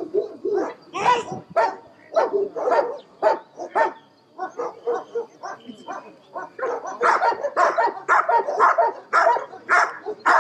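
German shepherd dogs barking repeatedly. The barks are spaced out at first, pause briefly just after four seconds, then come faster and louder in the second half.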